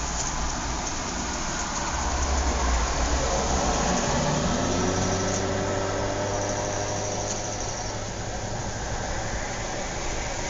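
A car passing by: its engine rumble grows louder about two seconds in and fades away in the second half, over a steady outdoor background hiss.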